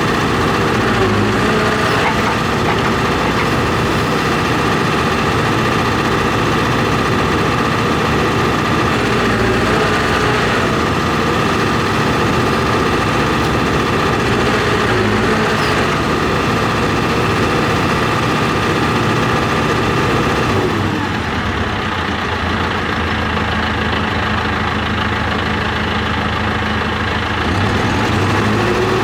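John Deere 245G excavator's diesel engine running steadily; about two-thirds of the way through it drops to a lower speed, and near the end it revs back up.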